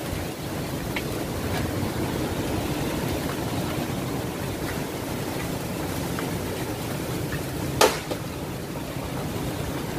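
Typhoon-force wind blowing in a steady rush, buffeting the microphone. About eight seconds in there is a single sharp bang, the loudest sound here, with a few faint ticks before it.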